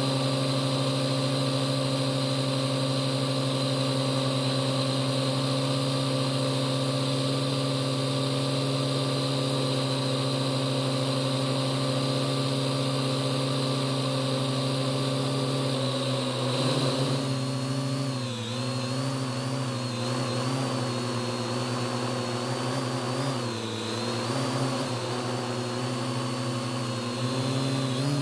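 Parrot AR.Drone's four electric motors and propellers heard from on board, a steady multi-toned hum and whine. From about halfway in, the pitch wobbles up and down as the motors speed up and slow down to manoeuvre.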